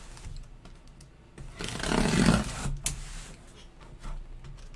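A sealed cardboard box being opened by hand: small clicks and taps on the cardboard and its sealing tape, with a longer scraping rustle from about a second and a half in.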